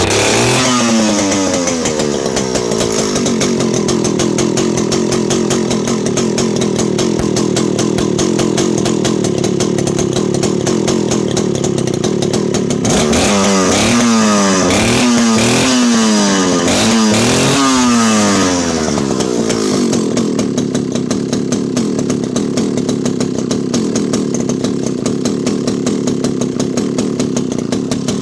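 Vintage Alpina 070S 70cc two-stroke chainsaw powerhead running: its revs fall over the first couple of seconds and it idles steadily, then is revved in a series of quick throttle blips around the middle before settling back to idle.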